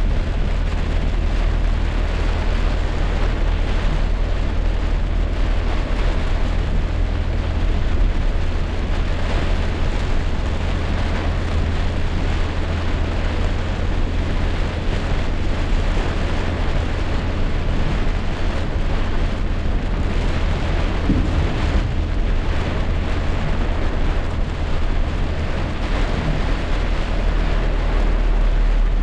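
Heavy rainstorm: rain pouring steadily with a strong, deep rumble underneath throughout.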